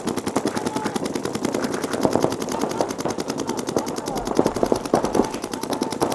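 Paintball markers firing rapid, evenly spaced streams of shots, several guns overlapping in continuous bursts.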